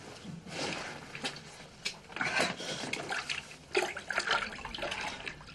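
Dirty water splashing and sloshing in a toilet bowl as a man climbs onto the toilet and plunges his head and arm into it, in irregular bursts that grow louder about two seconds in.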